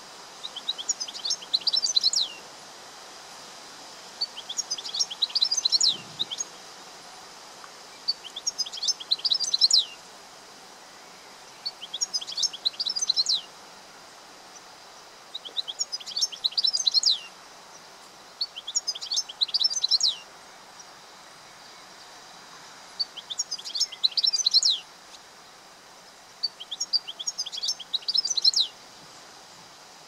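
European goldfinch singing: bursts of quick, high twittering notes, each about a second and a half long, repeated eight times with short pauses between.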